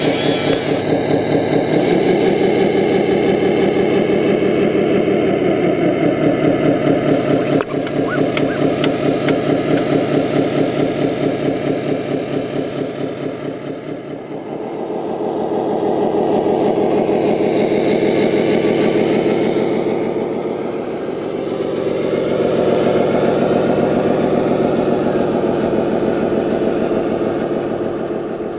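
Simulated diesel engine sound from the sound unit of an RC Scania 8x8 dump truck, idling steadily and swelling twice in the second half as the truck pulls away. A faint high whine in the middle, with a click as it starts, is the tipper bed being lowered.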